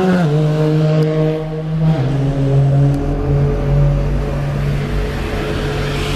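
Red double-decker bus pulling away from the stop, its engine and drive giving a steady pitched hum. The hum drops in pitch in two steps, once just after the start and again about two seconds in, then holds level over a low rumble.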